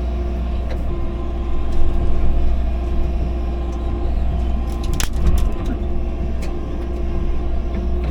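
Excavator's diesel engine running steadily with a hydraulic hum, and a sharp metallic clank about five seconds in, with a few lighter knocks around it.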